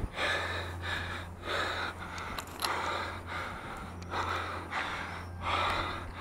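A person breathing hard and fast from exertion while climbing a chimney ladder, with about eight or nine loud breaths.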